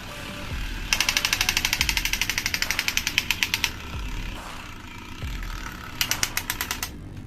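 Electric toy gun giving a rapid mechanical rattle of about a dozen clicks a second: a burst of nearly three seconds starting about a second in, and a shorter one near the end. A low thud repeats about once a second underneath.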